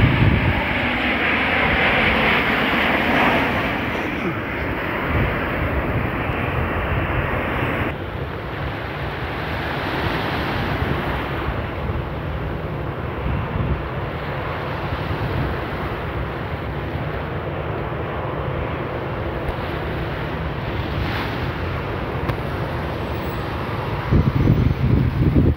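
Twin-engine jet airliner on landing approach, a loud steady rush of engine noise that cuts off abruptly about eight seconds in. After that, wind buffeting the microphone over surf, with stronger gusts near the end.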